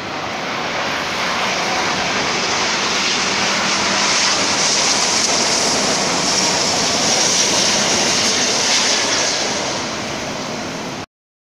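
Boeing 777-200ER jetliner passing low on final approach: a steady rush of jet engine noise that builds over the first few seconds, stays loud through the middle, eases a little, then cuts off abruptly near the end.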